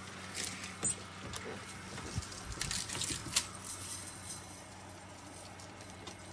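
Light metallic jingling and clicking, scattered and irregular, over a faint steady hum.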